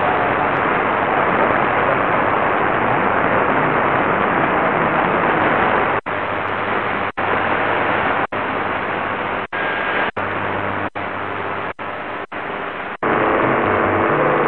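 Loud static hiss from the Qodosen SR-286 radio's speaker on a medium-wave frequency with no clear station. From about six seconds in, the sound cuts out briefly about nine times as the radio is tuned up the band in fast steps. Near the end it settles on 1530 kHz, where the Voice of America station from São Tomé comes in.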